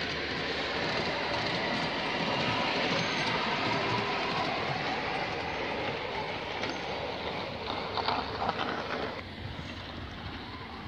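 Miniature ride-on passenger train running past on its track, a steady rumble of wheels on rail that swells and then fades as it moves away, dropping off about nine seconds in. A few sharp clicks come shortly before it fades.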